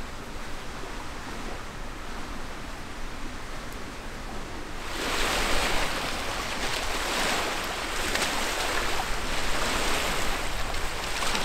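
Wind and choppy lake water washing against the shore, a steady rushing noise that gets louder and brighter about five seconds in.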